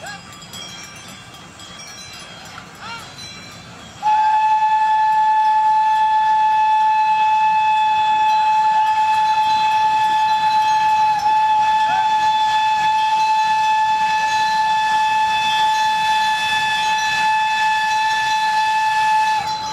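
Steam locomotive whistle blowing one long, steady note, starting suddenly about four seconds in and held for some fifteen seconds before cutting off near the end. Before it, faint chiming.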